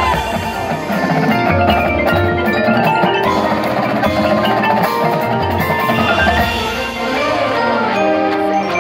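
Marching band playing its field show, with the front ensemble's marimbas and other mallet percussion prominent over sustained low notes.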